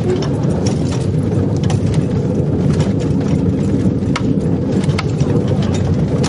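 Steady rumble and rattle of a horse-drawn railway wagon's wheels rolling along the rails, with scattered sharp clicks.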